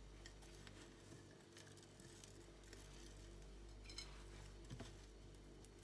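Very faint rustling of crumb coating as hands roll quark balls in a glass dish, with a couple of light clicks against the glass about four and five seconds in, over a low steady hum.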